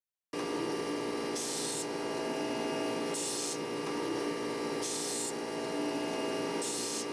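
Surface grinder running with flood coolant: a steady motor and spindle hum with several held tones. A hiss of the wheel cutting the workpiece comes four times, about every 1.6 s, as the table carries the part back and forth under the wheel.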